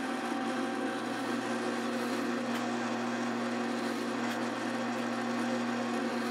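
Drill press motor running steadily while its bit bores into hardwood, cutting out the waste of a mortise.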